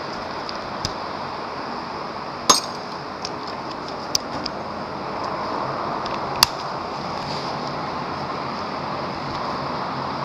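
Hand tools clinking against metal, a handful of sharp clinks, the loudest about two and a half and six and a half seconds in, over a steady background hum.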